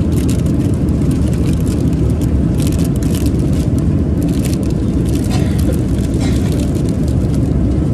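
Steady low rumble of a Boeing 787-9 airliner cabin in flight, with repeated crinkling of a clear plastic sandwich bag being handled.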